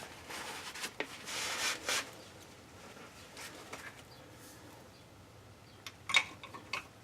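Quiet rubbing and rustling with a few light clicks and taps: the nozzle of a pressurised fluid fill pump being wiped off and handled.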